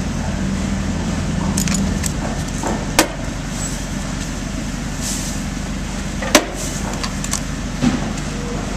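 An engine runs steadily with a low hum, likely the equipment powering the spray rig, with a few sharp clicks at about 3, 6 and 8 seconds.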